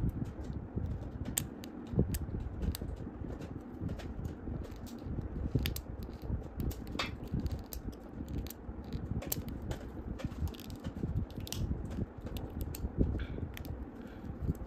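Scalpel blade scraping the inside of a plastic action figure's collar, shaving away plastic in short, irregular strokes: a scatter of small scratches and clicks over the low rustle of fingers handling the figure.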